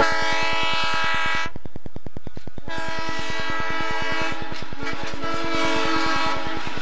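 Locomotive air horn sounding a chord of several tones, in two blasts: a short one of about a second and a half, then after a brief break a long one of about four seconds.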